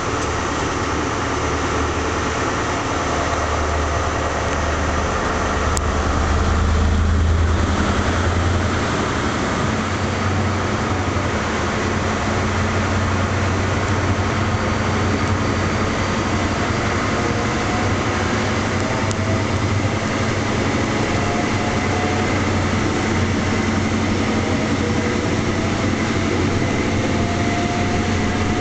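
HST power car's MTU diesel engine running steadily with a deep hum, swelling briefly about seven seconds in. Faint rising whines come and go in the second half.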